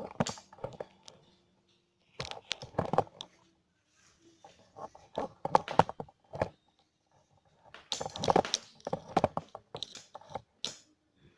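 Handling noise in several bursts of crinkling and clicking as a hose is worked onto the pipe of a salvaged refrigerator compressor.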